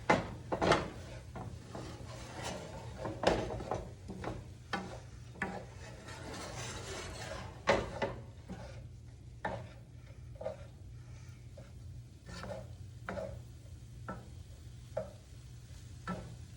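Spatula scraping and knocking in a pan as fried rice is stirred and turned, with heavier strokes in the first few seconds and about eight seconds in, and lighter, more regular ones after. A low steady hum runs underneath.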